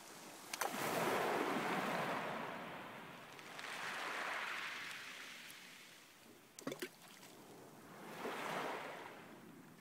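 Small waves washing up a pebble beach in three slow surges of surf, each rising and fading away. A few sharp clicks come about half a second in and again about two-thirds through.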